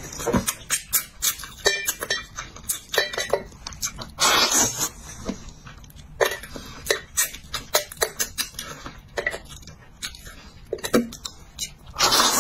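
Close-miked eating sounds: wet chewing and lip smacks as a man eats braised fish, with chopsticks clicking against the dishes. Short clicks and smacks come every fraction of a second, with two longer, louder sounds about four seconds in and near the end.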